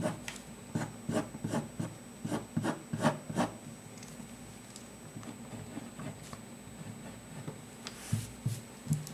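Pen scratching across paper in quick, short curved strokes, hair lines being sketched: about ten strokes in the first three and a half seconds, then fainter. A few soft low knocks near the end.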